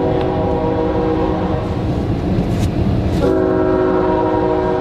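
Train horn sounding a steady multi-note chord in two long blasts: the first stops about a second and a half in, and the second starts about three seconds in and is still going at the end. A low rumble runs underneath.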